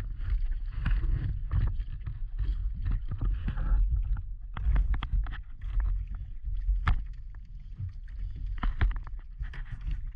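Paddling on open water: uneven splashes and sharp knocks of paddle strokes against a small floating craft, over a heavy low rumble of wind on the microphone.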